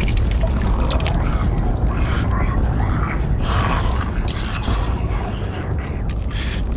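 Dark horror film soundscape: a constant low rumble with creaking and clicking noises over it.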